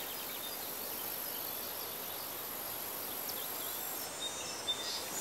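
Outdoor field ambience: birds chirping in short calls over a steady hiss.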